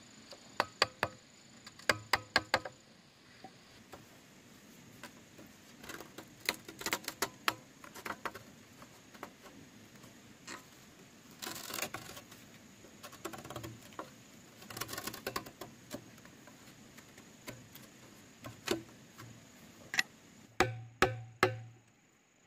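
Irregular knocks and clacks of hand work on bamboo, coming in clusters, with two short rasping noises near the middle.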